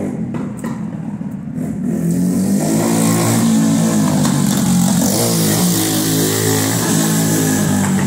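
Motorcycle passing on the street, its engine revving; it grows loud about two seconds in and stays loud. A few light clicks come before it.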